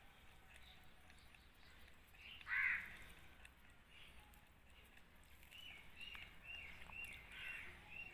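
Animal calls: one louder call about two and a half seconds in, then a quick run of short, repeated high calls, about two a second, near the end.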